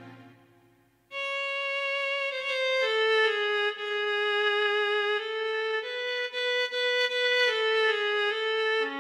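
Background music: after the previous piece fades out, a slow solo violin melody of long held notes begins about a second in.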